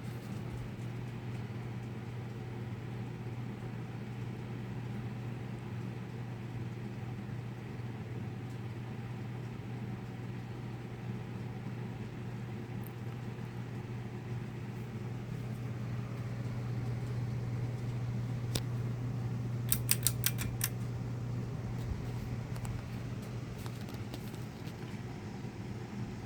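Harbor Breeze Armory 42-inch ceiling fan running with a steady low motor hum. A quick run of light clicks comes about three quarters of the way through.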